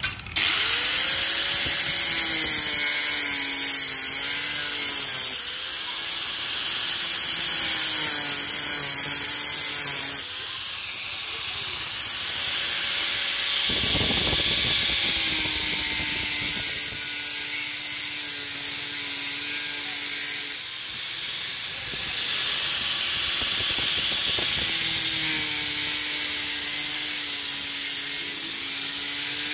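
Angle grinder with a cutting disc cutting through the steel of a small motorcycle exhaust silencer at its seam: a loud, steady hissing grind over the motor's whine, which sags in pitch as the disc is pressed into the metal and recovers between several passes.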